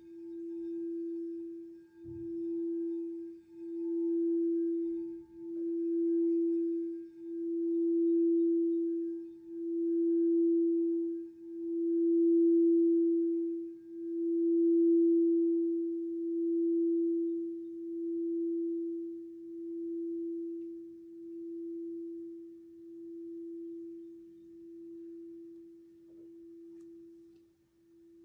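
Crystal singing bowl sung by rubbing a mallet around its rim: one steady ringing tone that pulses about every two seconds, swelling to its loudest about halfway through and then slowly dying away after the playing stops.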